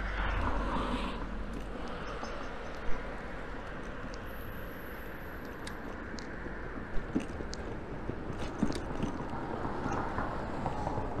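Steady rushing ride noise from an e-bike rolling along a paved cycle path at about 20 km/h, tyre and wind noise blended with road traffic, with a couple of sharp knocks, one about three seconds in and another past the middle.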